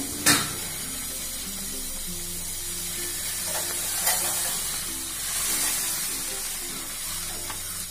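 Boiling water hissing and bubbling as dried rice ada is poured into it from a packet, with a click near the start. Soft background music with slow held notes plays underneath.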